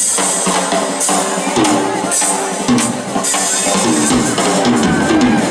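Southern rock band playing live: a full drum kit driving the beat with repeated cymbal crashes under the rest of the band.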